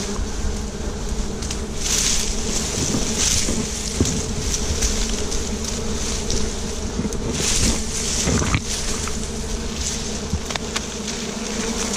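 A swarm of wild honeybees buzzing around their large comb in a steady, dense hum.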